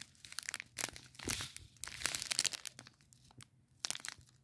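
Clear plastic packet of diamond-painting drills crinkling as it is handled, busiest in the first two and a half seconds, then a short burst of crinkling near the end.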